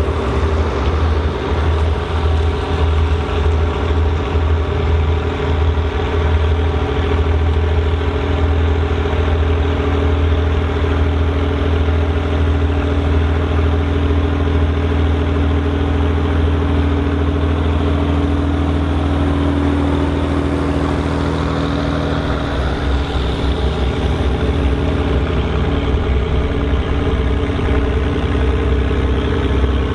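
A Volvo BM tractor's turbocharged diesel engine running steadily, with a faint high turbo whistle above the engine note.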